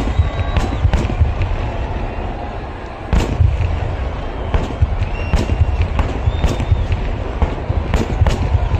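Temple-festival fireworks display going off: many sharp, loud bangs in quick, uneven succession over a continuous deep rumble of further explosions.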